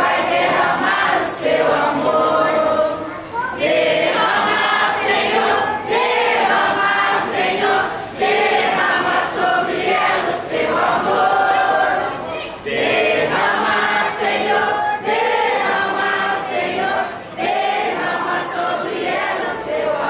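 A group of people singing together.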